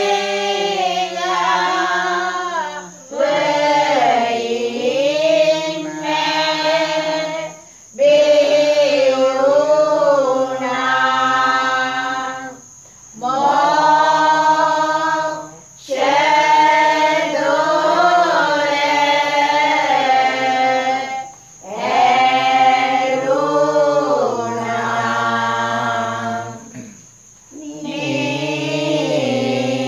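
A group of voices singing a Sinhala Passion hymn (pasan) unaccompanied, in phrases a few seconds long with short breath pauses between them.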